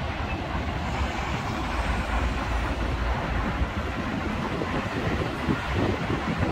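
Road traffic at a roundabout, cars and vans driving by: a steady mix of engine rumble and tyre noise, the low rumble heaviest in the first three seconds.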